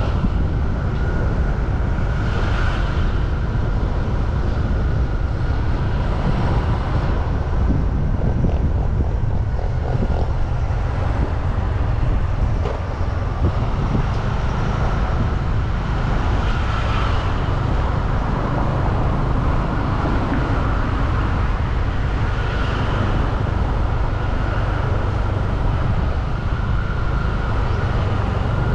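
Steady street ambience of road traffic passing, with a heavy low rumble throughout and a few swells as vehicles go by.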